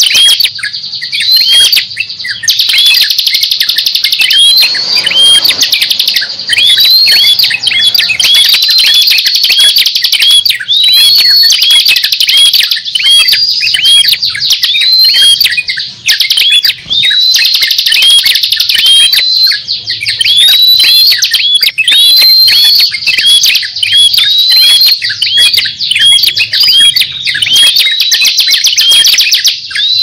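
Small songbirds chirping without a break: a fast run of short, high notes that rise and hook over, about two a second, with sharper ticking notes above them.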